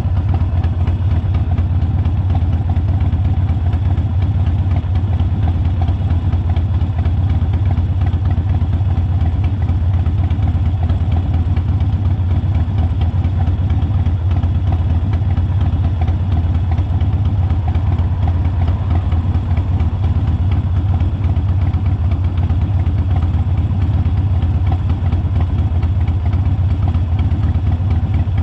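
Harley-Davidson motorcycle's V-twin engine running steadily, a constant low rumble with no revving or change in speed.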